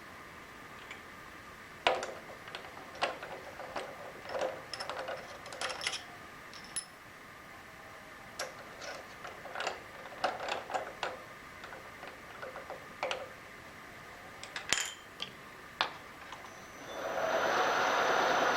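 Scattered light metallic clicks and clinks of tools and metal parts being handled. About a second and a half before the end, a machine starts and runs steadily, plausibly the milling machine's spindle being switched on to centre-drill.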